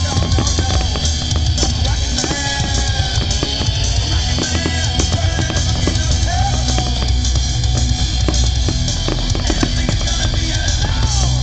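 Loud rock music with a drum kit and a steady bass line, playing continuously.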